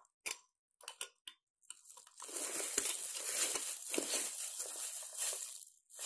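A metal lid clicks down onto a glass mason jar a few times, then its threaded screw band is twisted shut by a hand in a plastic glove. The twisting makes a steady crinkling scrape, from about two seconds in until just before the end.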